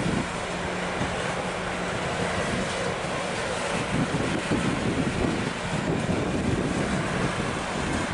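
A train rolling past, with a steady low hum for the first few seconds and wind buffeting the microphone.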